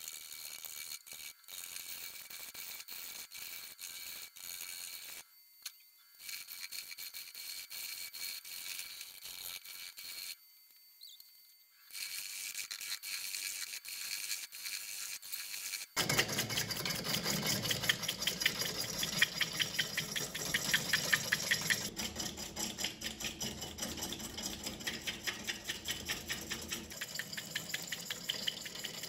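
Gouge cutting a spinning willow bowl blank on an Omega Stubby wood lathe, a steady hiss of shavings coming off. About halfway through it turns louder and fuller, with a fast, even ticking as the tool cuts.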